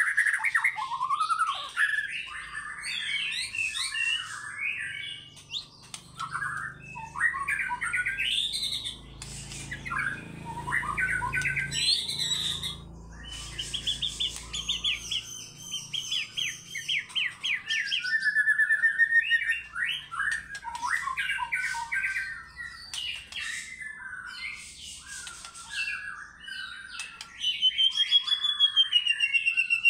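White-rumped shama singing a long, varied song: quick up-and-down whistles, harsh chattering phrases and fast runs of repeated notes, ending in a clear wavering whistle.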